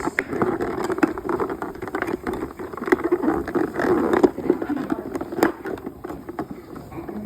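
Plastic blister packaging crinkling and crackling as it is handled and pulled open, with many irregular sharp clicks.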